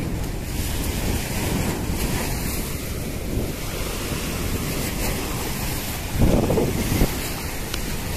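Choppy sea waves washing and breaking at the shore, with strong wind buffeting the microphone; a louder rush about six seconds in.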